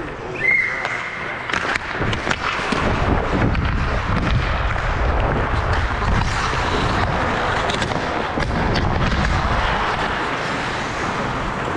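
Ice hockey play on the rink: skates scraping the ice with repeated sharp knocks of sticks and puck. A brief high steady tone sounds about half a second in.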